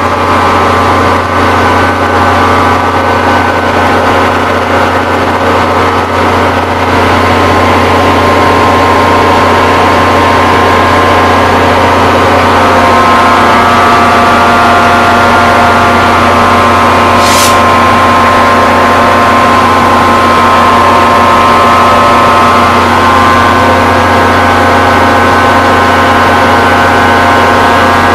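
NJ Transit GP40PH-2B diesel locomotive idling close up: a steady, loud engine sound with a whine over it. A short hiss of air comes about seventeen seconds in.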